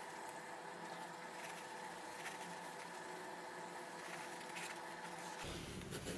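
Faint steady electrical-sounding hum, with soft rubbing and handling sounds from a cloth being worked over the leather shell of a pickelhaube helmet. About five seconds in, the hum stops and a low rumble takes over.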